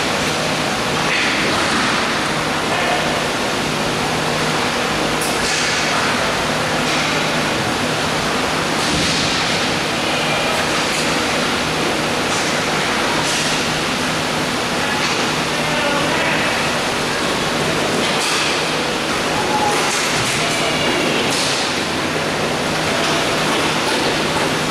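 Indoor roller hockey rink ambience: a loud, steady rushing noise with a low hum underneath, faint distant voices, and a few scattered faint knocks.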